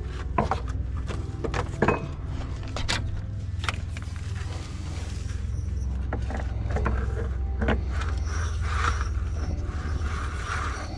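Irregular metallic clicks and knocks as the fan clutch is threaded back onto the Kodiak 5500's water pump shaft by hand and with tools, over a steady low hum.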